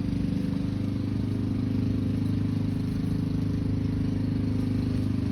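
Lawn mower engine running steadily at an even pitch.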